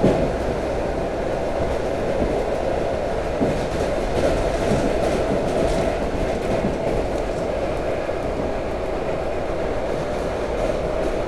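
Steady running noise of an electric commuter train heard from inside the carriage, with wheels rolling on the rails. A few faint knocks from the track come through, one right at the start and another about three and a half seconds in.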